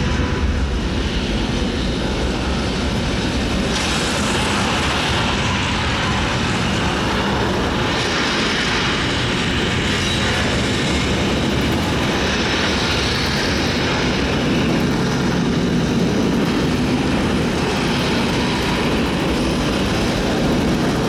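The recorded sound of a Saturn V rocket's five F-1 first-stage engines at liftoff, played loud through a theatre's loudspeakers. It is a dense, steady rumble that holds throughout.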